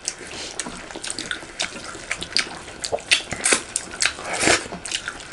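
Close-miked eating by hand: wet chewing and mouth smacking with irregular clicks, mixed with the squelch of fingers working rice and curry on metal plates.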